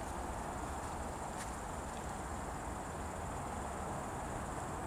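Insects chirring steadily at a high pitch, crickets by the sound of it, over a steady low background rumble, with one faint tick about a second and a half in.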